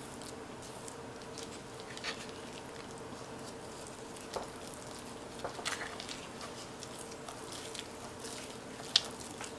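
A spoon stirring melted butter into a soft dough in a mixing bowl: quiet squishing with a few light clicks of the spoon against the bowl.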